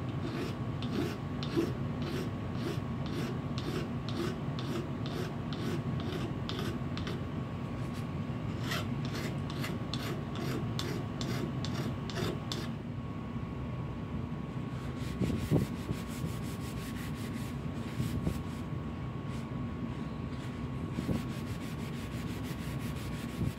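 Rhythmic rasping strokes of the steel pliers being hand-abraded, about two strokes a second. From about fifteen seconds in the strokes come faster and closer together. A faint steady hum lies underneath.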